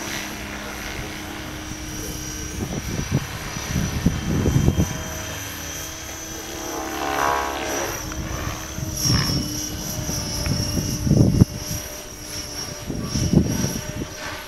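Radio-controlled model helicopter flying and manoeuvring overhead, its rotor and motor giving a steady high whine that dips briefly about nine seconds in. Bursts of low rumble come and go several times.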